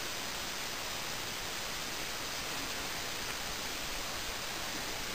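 Steady hiss of water spraying from a hose onto an elephant during a wash.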